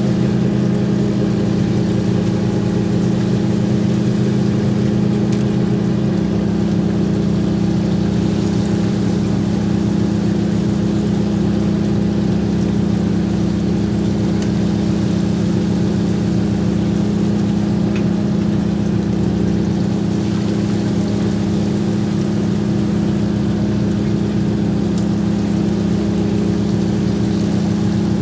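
Fishing boat's engine running steadily with a deep, constant hum. A lower hum in it drops out about six seconds in.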